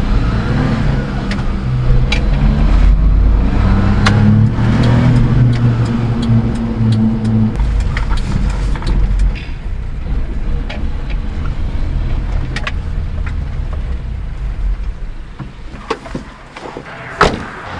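Daihatsu HiJet S83P mini truck's three-cylinder engine heard from inside the cab. Its revs rise and fall in steps for the first eight seconds, then it runs lower and quieter. A sharp click comes near the end.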